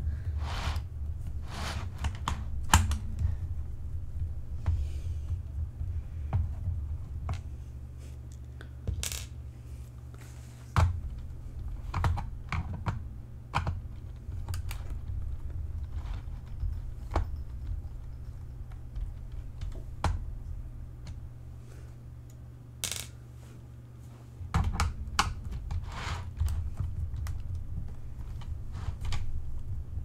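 Scattered clicks and taps of a screwdriver working screws out of a plastic keyboard's back panel, with small metal screws clinking as they drop onto the desk, over a low rumble of handling on the desk.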